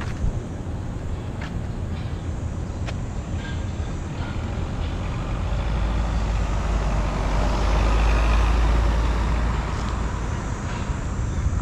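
City street traffic with one road vehicle passing close by: its sound builds for a few seconds, is loudest about eight seconds in, then fades.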